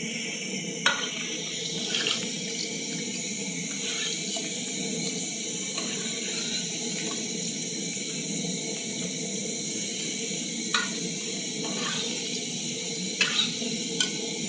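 Potato chips deep-frying in hot oil, a steady sizzle, with a few sharp clicks from utensils now and then.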